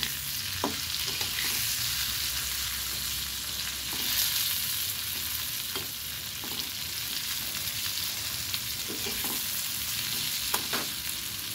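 Pointed gourd (potol) pieces frying in mustard oil in an aluminium kadai, a steady sizzling hiss. A metal spatula scrapes and knocks against the pan a few times.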